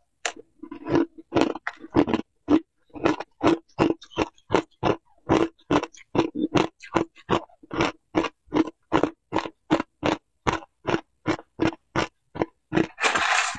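Close-up chewing of a mouthful of ice chunks: hard, crisp crunches at a steady pace of about two to three a second. Near the end comes a brief noisy rush.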